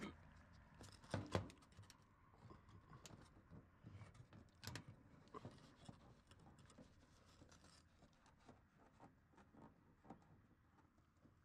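Near silence, with a few faint scratches and clicks of hands handling a string of plastic light pucks and their flat cable against a soffit, the loudest about a second in and again near five seconds in.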